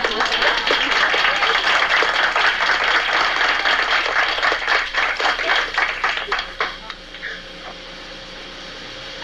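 Audience applauding: many people clapping at once, thinning out to scattered claps and dying away about seven seconds in.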